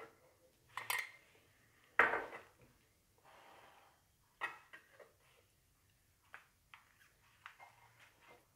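A spoon and a silicone pastry brush spreading jam on a sponge cake sheet: a few light clicks and knocks of the utensils, the loudest about two seconds in, with a soft brushing sound a little after.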